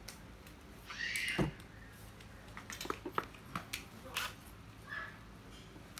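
Handling noise from plastic spinning fishing reels being set down and picked up: a scatter of sharp clicks and taps. About a second in there is a brief, louder sound that slides down in pitch.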